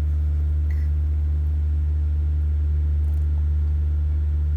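A steady low machine hum that does not change, with only a faint brief sound about a second in.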